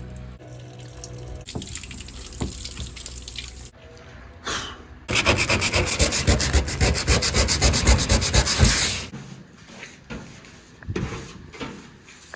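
Rapid back-and-forth rubbing strokes, like sanding or scrubbing, loudest for about four seconds in the middle, between shorter bursts of handling noise.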